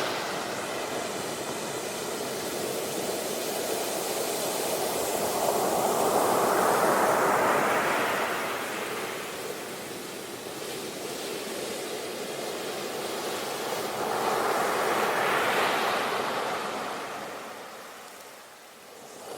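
Sea waves surging in and washing back on a shore. The surf swells twice, loudest about six to eight seconds in and again around fifteen seconds, then dies away near the end.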